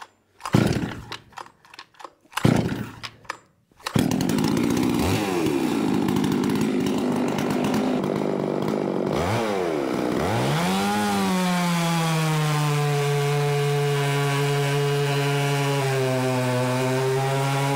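Home-built Stihl MS 660 clone, a big two-stroke chainsaw, running at full throttle through a timed test cut in a log. After two short bursts of sound, the saw runs continuously from about four seconds in; its pitch dips twice under load, then settles into a steadier high note for the second half.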